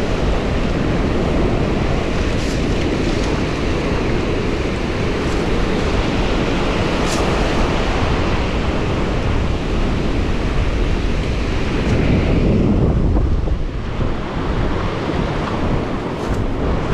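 Wind buffeting a microphone that has no windsock, over ocean surf breaking on the beach.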